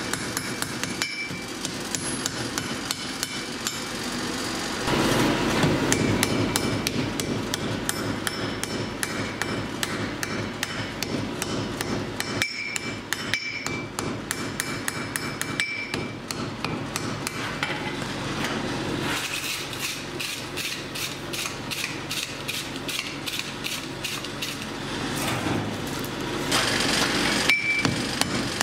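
Hand hammer striking red-hot steel on an anvil: a long run of rapid blows, about three or four a second, with a short bright ring on some strikes, breaking off briefly a few times.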